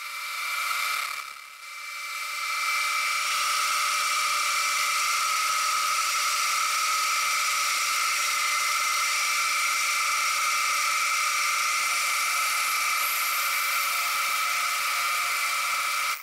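Vertical milling machine spindle running an 11 mm end mill as it cuts small cutouts in a metal mounting plate: a steady high whine with a hiss of cutting. It dips briefly about a second and a half in, then holds steady.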